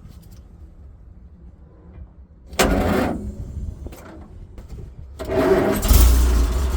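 Bedford RL truck's petrol straight-six being cranked on a jump pack after refusing to start: it fires briefly about two and a half seconds in, then catches near the end and keeps running.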